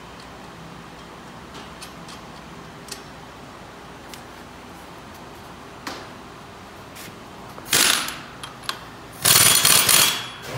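Light metal clicks as a wheel hub is worked onto a trike's rear axle, then two loud, harsh bursts of metal tool noise near the end, the second lasting about a second.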